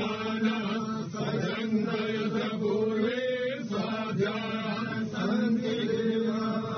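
Voices chanting Hindu prayer mantras in a continuous recitation held on a fairly steady pitch.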